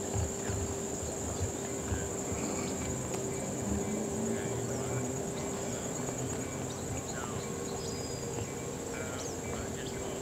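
Insects trilling steadily at a high pitch, with a few faint short chirps over the top.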